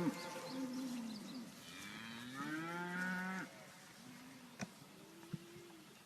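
Cattle mooing: a short call, then a longer, fuller moo about two seconds in, then fainter calls. Two faint clicks come near the end.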